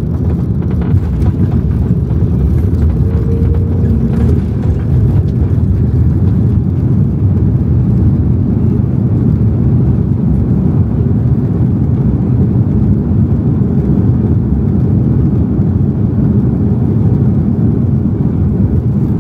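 Airliner cabin noise: a steady low rumble of the jet's engines and rolling wheels as the plane moves along the ground.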